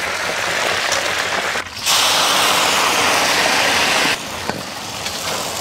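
Crayfish deep-frying in a wok of hot oil, a steady hissing sizzle. It drops out briefly about a second and a half in, comes back louder, and eases off again about four seconds in.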